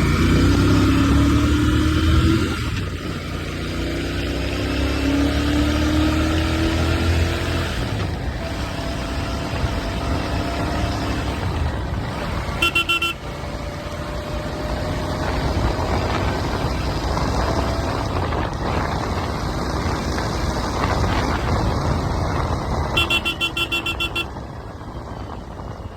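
Motorcycle engine running under way, its exhaust note rising in pitch through the first several seconds, then steadier road and wind noise. A vehicle horn sounds briefly twice, near the middle and near the end.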